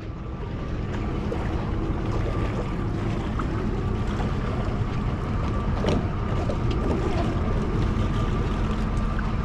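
Small fishing boat under way: its motor running steadily with water and wind noise, picking up over the first second and then holding even, with a faint thin whine through it.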